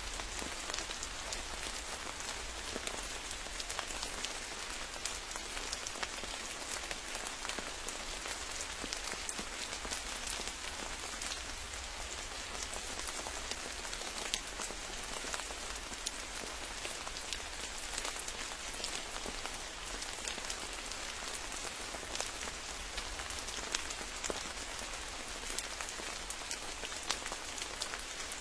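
Steady rain falling, a constant hiss with many sharp individual drop hits scattered throughout and a steady low rumble underneath.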